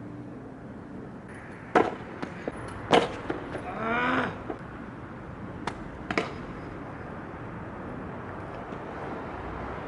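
A kick scooter knocking and clacking on concrete: four sharp knocks, and a short squeak-like pitched sound about four seconds in, over a steady hiss of background noise.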